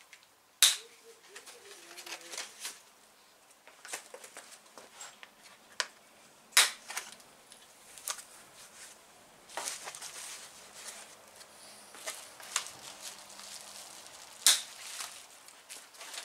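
Packaging being cut and pulled off a bicycle frame: three sharp, loud snaps from a small hand cutter snipping through the wrapping, spaced several seconds apart, with lighter clicks and plastic wrap rustling in between.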